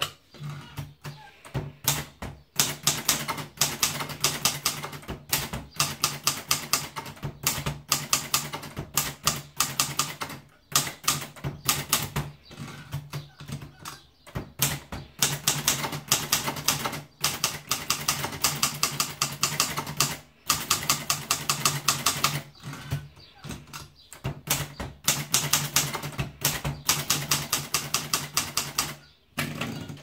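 Silver Reed 7200 portable manual typewriter being typed on: fast runs of sharp key clacks, broken by several short pauses.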